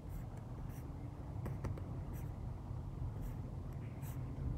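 Faint scattered ticks and light scratchy rubbing from a computer pointing device being used to scroll a page, over a steady low hum of room and microphone noise.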